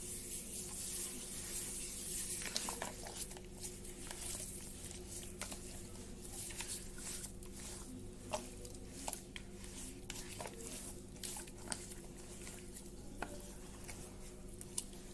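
Bare hand massaging a raw ox tongue coated in salt and lemon juice in a plastic bowl: wet rubbing with many small irregular clicks and slaps as the meat is pressed and turned, over a steady low hum.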